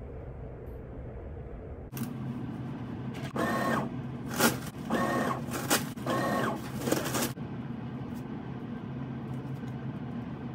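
Automatic touchless paper towel dispenser's motor whirring three times in short bursts as it feeds out towels, with sharp paper rustles between the bursts.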